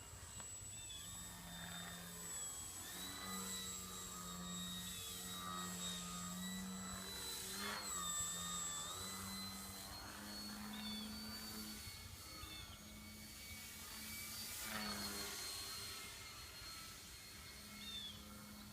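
Electric motor and propeller of a small RC plane, a Twisted Hobbys Crack Turbo Beaver on a 2-cell battery, droning with a high whine in flight. The pitch steps up and down every few seconds with the throttle, and the sound swells twice.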